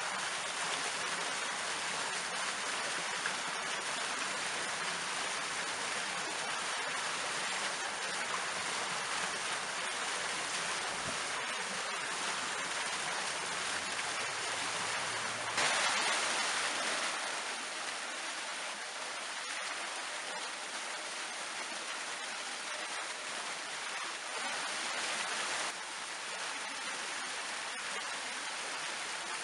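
Fountain water spouting and splashing down over stone blocks: a steady rush of falling water that jumps suddenly louder about halfway through and drops back a little near the end.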